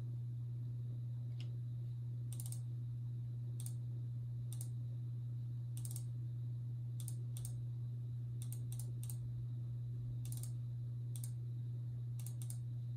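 Computer mouse clicking, about a dozen sharp clicks at irregular intervals, often in quick pairs, over a steady low hum.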